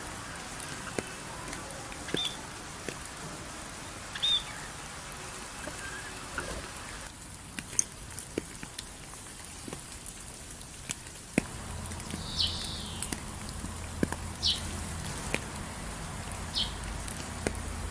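Steady rain patter with scattered drip clicks, and short, high bird chirps every second or two. Partway through the background shifts, and a low hum comes in under the rain.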